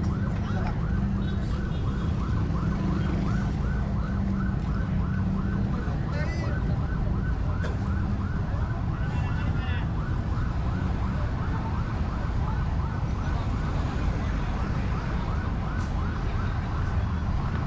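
A siren sounding a fast yelp, about three rising-and-falling sweeps a second, over the rumble of street traffic. A low steady engine hum drops away about six seconds in.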